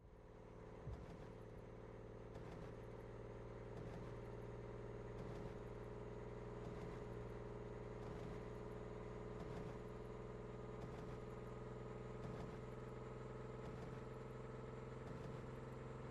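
Low steady electronic drone from the anime's soundtrack, made of several held tones with a soft pulse about every one and a half seconds, coming up out of silence at the start.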